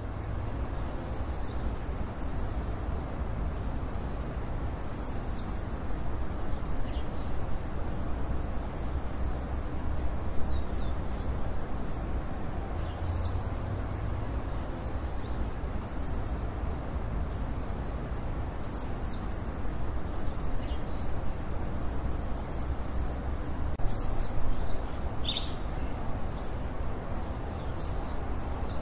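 Birds calling: a short, high call repeats about every three seconds, with other scattered chirps and whistles, over a steady low background noise.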